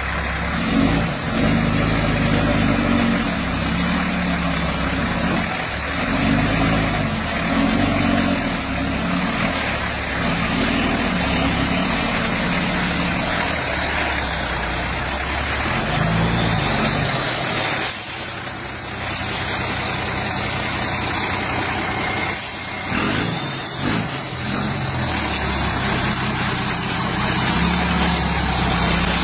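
Diesel engine of a Ford Cargo truck running at low speed, its note rising and falling as the truck is worked over a rough plank crossing, with a brief dip and a single click a little past the middle.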